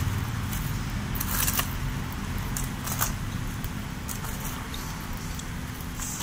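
Loose garden soil being scraped and pressed by hand around a sapling, with scattered short crackles and scrapes over a low steady rumble.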